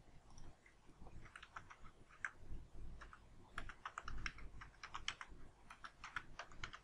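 Computer keyboard keys tapped in quick, irregular runs of faint clicks as a word is typed out, starting about a second in.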